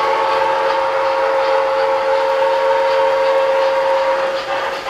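O-gauge model steam locomotive's electronic whistle sounded in one long, steady chord-like blast that cuts off near the end, over the faint rolling of trains on three-rail track.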